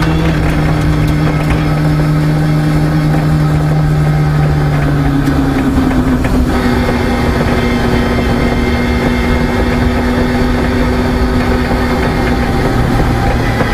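Peugeot 306 rally car's engine heard from inside the cabin, running at steady revs over a loose-surface rumble from the tyres. The engine note shifts about five to six seconds in, then holds steady again.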